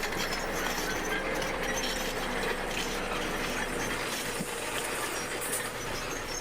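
Bulldozer running and moving on its steel crawler tracks: a steady diesel engine with metallic clanking from the tracks.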